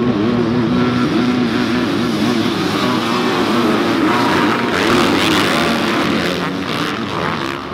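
A pack of 250-class motocross bikes racing together, many engine notes overlapping and rising and falling as the riders rev hard through the turns.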